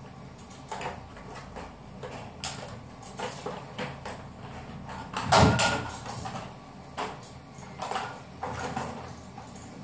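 Small objects being handled and set down in a bathroom, a string of light clicks and knocks, with one louder thump about halfway through.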